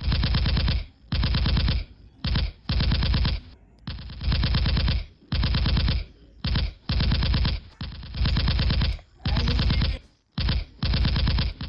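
Toy gun playing its electronic machine-gun sound effect in about a dozen short, rapid-fire bursts, each under a second long with brief gaps between.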